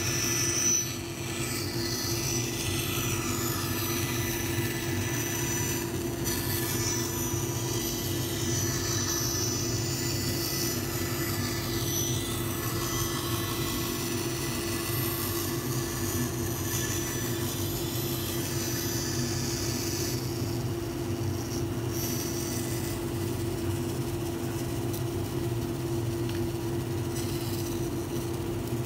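Bandsaw running with a steady hum while its blade cuts a circle out of plywood turned on a centre pivot pin. The higher cutting noise stops about twenty seconds in and the saw runs on alone.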